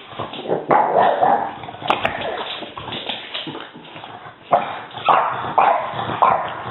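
French bulldog puppy giving short, rough play barks and yips, a string of them that comes quicker in the second half.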